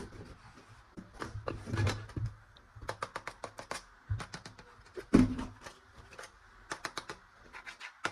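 Hard plastic toy gun parts being handled, clicking and knocking: runs of quick sharp clicks with a few duller knocks in between.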